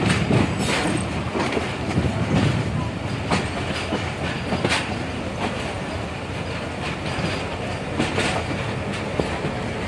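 Passenger coach wheels rolling over the track, heard from the coach window: a steady rumble with irregular sharp clicks and clunks as the wheels cross rail joints and points.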